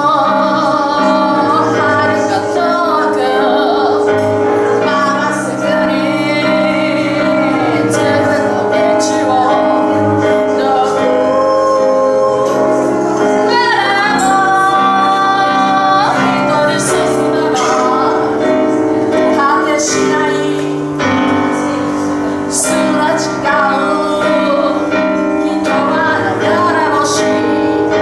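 A woman singing to her own grand piano accompaniment, with long held notes that waver in vibrato.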